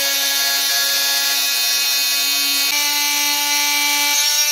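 Corded oscillating multi-tool with a round blade running steadily while it cuts through a plastic car side skirt, a loud even buzz whose pitch shifts slightly a little under three seconds in.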